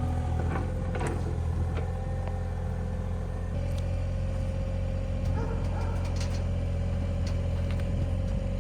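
Engine of an earthmoving machine running steadily while it cuts and levels dirt. A thin steady whine joins in about three and a half seconds in, with a few scattered knocks.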